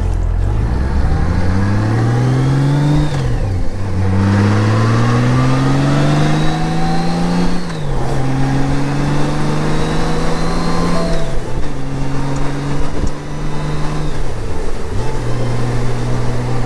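Honda Gold Wing flat-six engine pulling away and working up through the gears. Its pitch climbs, then drops back at each of about four gear changes. The later gears hold a steadier pitch as the bike settles toward cruising speed.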